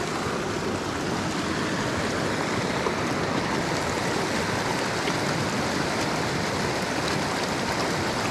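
Small rocky mountain creek running over stones and little cascades in a steady, even rush of water.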